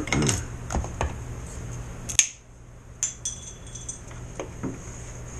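Light clicks and knocks of thin wooden hull parts and a pencil being handled and pressed into place on a workbench, with one sharper click a little over two seconds in.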